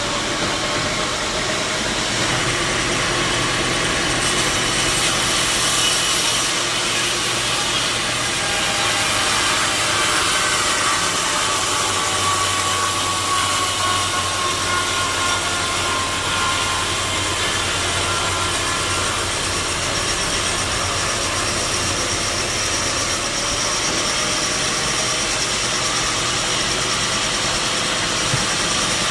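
Sawmill saw running steadily while cutting wood, a dense mechanical noise with a motor hum and a faint whine that drifts slowly in pitch.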